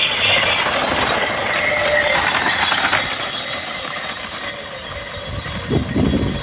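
A pair of water buffalo pulling a mekepung racing cart rush past on a dirt track: a loud rattling clatter of the cart and hooves, fading as they move off. A few dull thumps come near the end.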